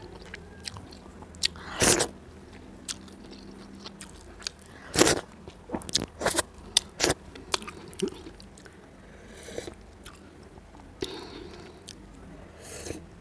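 Close-up eating sounds: chewing and crunching, with sharp irregular mouth clicks and smacks as food eaten by hand is chewed.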